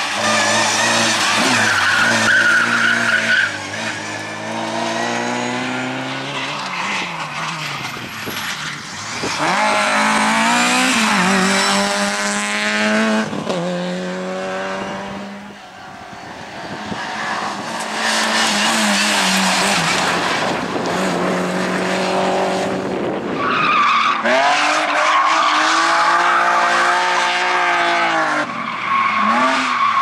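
Rally cars driven flat out one after another: petrol engines revving up and dropping off again and again through gear changes and corners, with tyres squealing in slides near the start and again towards the end.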